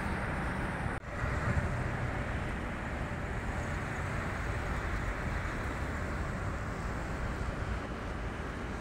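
Steady outdoor background noise: wind on the microphone over a low traffic rumble. It drops out for an instant about a second in.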